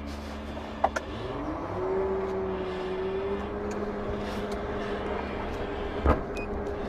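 Motor vehicle engine running, its pitch rising over about a second early on and then holding steady, with a few sharp clicks or knocks.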